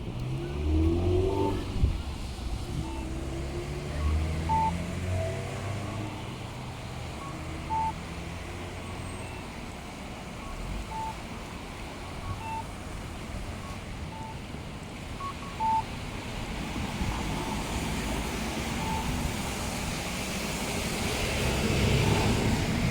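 Street traffic: a vehicle engine pulls away and rises in pitch over the first few seconds, and another vehicle's noise swells near the end. Under it, a short electronic beep repeats about every second and a half.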